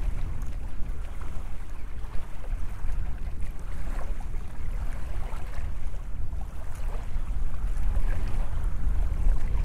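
Wind buffeting the microphone in a steady low rumble, with small waves faintly lapping at the shoreline.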